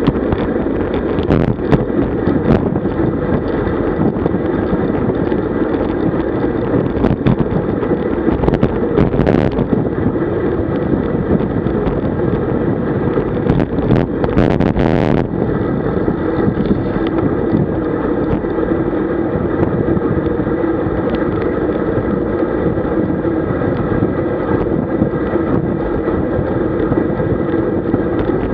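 Steady wind rush on the microphone of a camera mounted on a road bike at about 45 km/h, mixed with tyre and road noise, with a few short clicks and a brief burst of hiss about fourteen seconds in.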